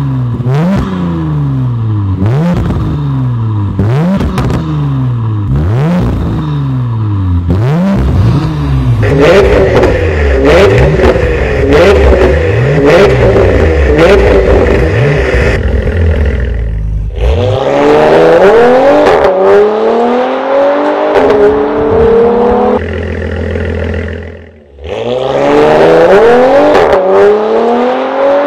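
Porsche Panamera 971 engine through an Armytrix turbo-back valvetronic exhaust: first a run of quick throttle blips, about one a second, each rising and falling in pitch. Then higher, held revving, and then the car accelerating hard in long rising sweeps with gear changes.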